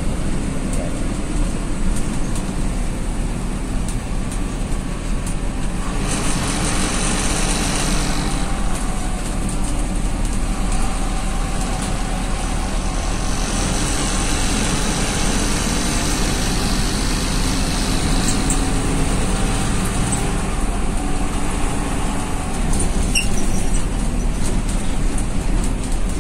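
City bus engine and road noise heard from inside the cabin: a steady low rumble. A high hiss rises over it about six seconds in and again from about fourteen to eighteen seconds.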